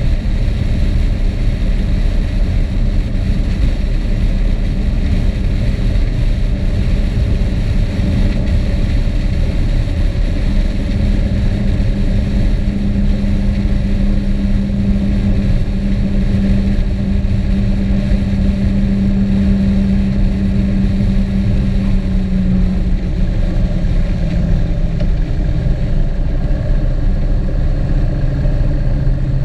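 Motor vehicle under way: a steady engine drone over heavy low road and wind rumble. The engine note drops a little about two-thirds of the way through and steps lower again near the end.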